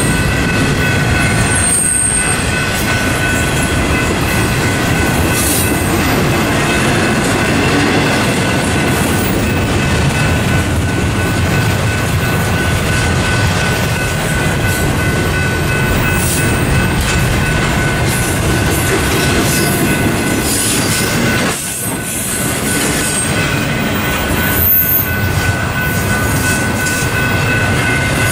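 BNSF double-stack intermodal train's well cars rolling past: a loud, steady rumble and clatter of steel wheels on rail, with a steady high-pitched wheel squeal over it. The noise dips briefly about two-thirds of the way through.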